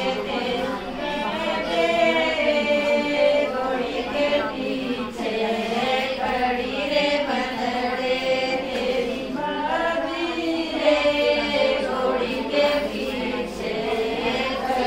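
A group of women singing a Haryanvi folk song together, unaccompanied, in long drawn-out phrases.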